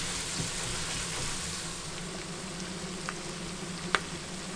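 Floured squid frying in hot corn oil in a pan: a steady sizzle, with two sharp clicks late on, the second the louder.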